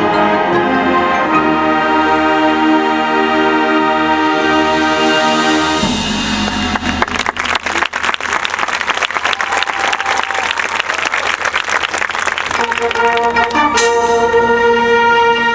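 Marching band brass holding full sustained chords. About six seconds in they give way to a burst of crowd applause. The brass comes back in strongly near the end.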